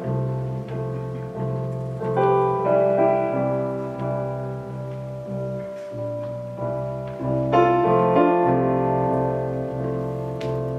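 Instrumental piano accompaniment with no singing: sustained chords over a steady, evenly pulsing bass, with fresh chords struck about two seconds in and again past halfway.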